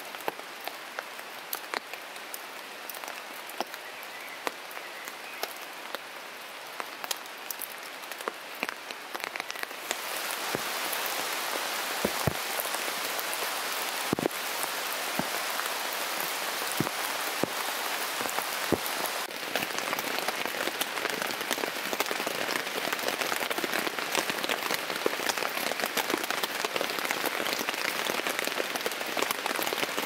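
Steady rain pattering on a tent, with many sharp individual drop hits. The rain grows louder about ten seconds in, and a few heavier drops land with a dull thud.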